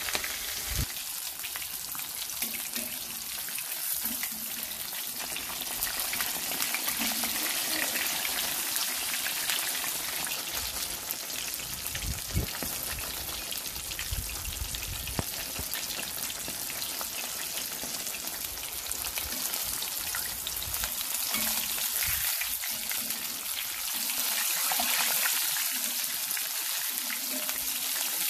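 Unbreaded chicken legs deep-frying in hot oil in a cast iron wok: a steady sizzle and crackle of bubbling oil, growing a little louder near the end.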